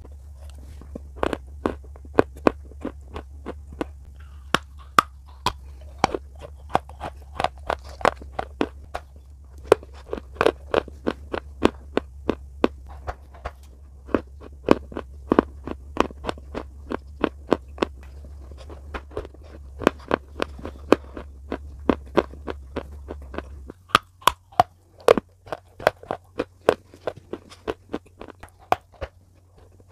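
Close-up chewing and crunching of slate bars: a rapid, uneven run of sharp crunching cracks, several a second, as the hard pieces break between the teeth. A low hum sits underneath and drops away about three-quarters of the way through.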